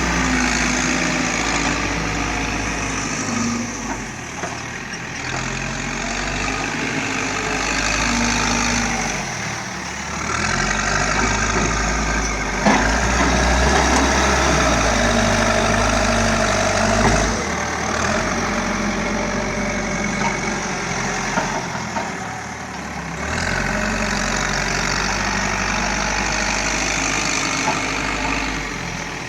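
Diesel engine of a Caterpillar heavy machine running under changing load, its pitch and loudness shifting every few seconds. It is loudest through the middle, where there is a single sharp knock.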